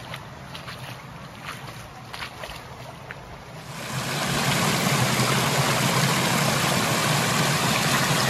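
Shallow stream water running over a stone ledge. About four seconds in, the splashing cascade becomes much louder and closer: a steady rush.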